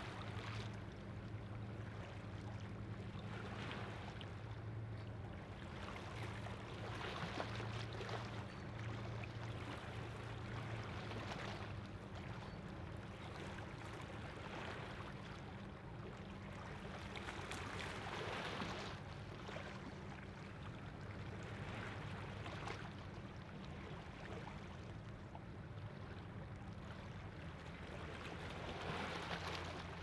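A low, steady hum of a ship's engine running under the rush of water lapping against the shore, which swells and ebbs every few seconds.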